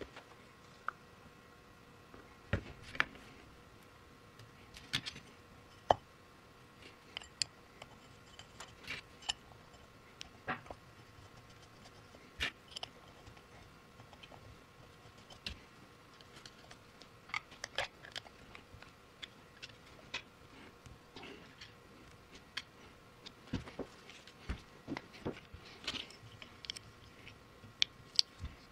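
Scattered light clicks and knocks of hand work on a lever-type shock absorber: a plastic fluid jug and metal parts handled as the shock is refilled, and the cover fitted and its screws turned with a small wrench.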